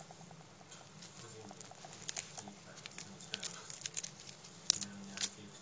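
Scratchy crackles and sharp clicks of a long-haired cat rubbing its face and fur against the camera, right on the microphone. The clicks come irregularly and thicken from about two seconds in.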